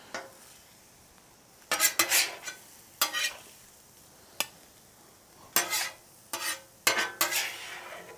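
Metal griddle spatula scraping scrambled eggs across the steel cooktop of a Blackstone griddle and scooping them up, in about six short scrapes with a single sharp click in the middle. The eggs come off easily, a sign of a well-seasoned surface.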